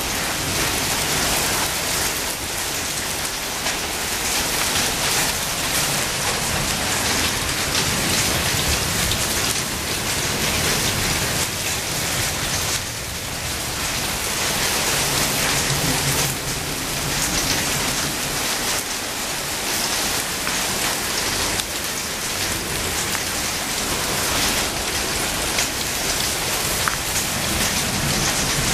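Heavy rain falling steadily on tiled paving and garden plants: a dense hiss full of small drop ticks, dying down slightly for a moment around halfway through. It is the rear end of a hailstorm.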